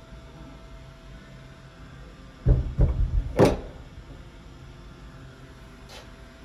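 Knocking and thumping on a toilet cubicle's door and partition: a few quick thumps about halfway through, ending in a sharper clack.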